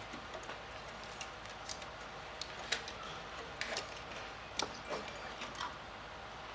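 Faint, irregular light clicks and ticks of hands working the drive mechanism inside a Zebra ZT620 label printer as its main drive belt is taken off.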